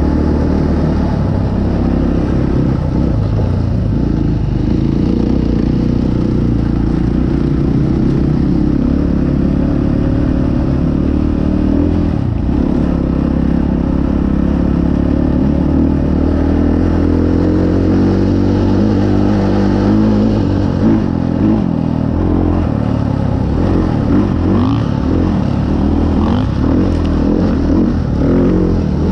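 Dirt bike engine running under load as it is ridden, its pitch rising and falling with the throttle. From about twenty seconds in, short knocks and rattles from the rough dirt trail come in over the engine.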